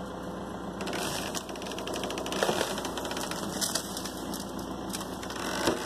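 Rapid clattering and creaking as an in-ground trampoline's metal frame is hauled out of its pit by straps, over the steady running of the tractor's engine. The clatter starts about a second in, with a louder knock near the end.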